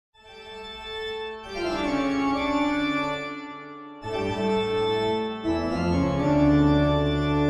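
Organ music: slow, held chords that change a few times, swelling in from silence over the first couple of seconds, with a deep bass note entering about halfway through.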